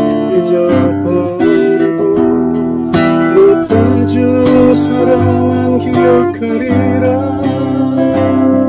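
Steel-string cutaway acoustic guitar played solo, chords and single notes struck in a steady, unhurried rhythm.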